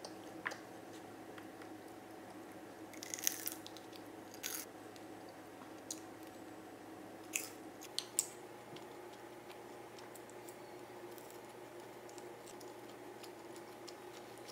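Someone eating fried seaweed rolls: a few crisp crunching bites, in two clusters in the first half, and soft chewing, over a faint steady hum of room tone.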